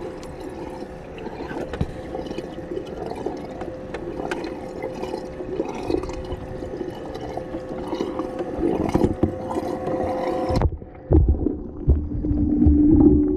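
Water splashing and circulating in a boat's livewell of live bigeye scad, over a steady mechanical hum. About ten seconds in, the sound suddenly turns dull and muffled as it is heard from under the water, with a low steady hum and low thumps.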